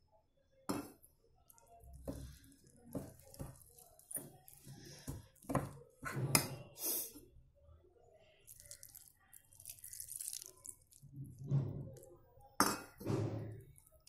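Steel spoon scraping and clinking against a glass bowl as rice flour is stirred together with water, in irregular light taps and scrapes.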